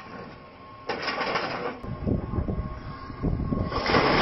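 Hydraulic excavator tearing into the aluminium fuselage of a Yak-42 airliner: metal crunching and screeching in uneven surges, jumping up suddenly about a second in and loudest near the end.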